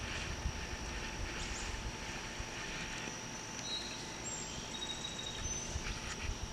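Outdoor ambience: a steady high insect drone runs throughout, with a low rumble underneath. A few short, faint bird chirps come in the second half.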